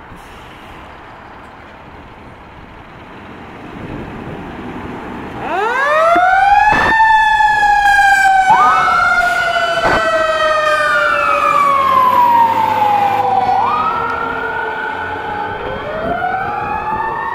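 Fire engine running as it pulls out, its rumble growing louder, then about five seconds in its siren starts, winding up to a loud wail. Two or more overlapping siren tones glide up and down in pitch.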